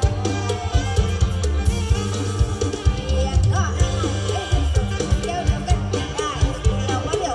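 Live mor lam band music: drum kit and bass keeping a steady dance beat under melodic instruments.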